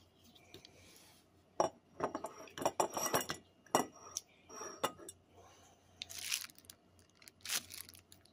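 Scattered clinks and knocks of kitchen glassware being handled: a spoon in a glass measuring cup of salt brine and a glass swing-top jar. A few of the clinks ring briefly.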